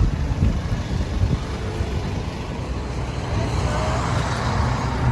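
Steady low rumble of a motor vehicle on the road, with faint voices in the background.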